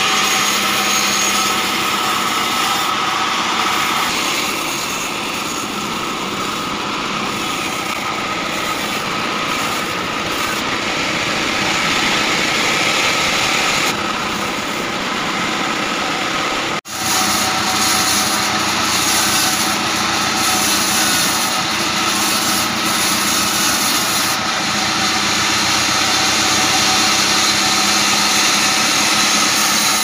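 Sawmill band saw running steadily, its blade cutting through a very hard acacia log. The sound drops out for an instant about halfway through.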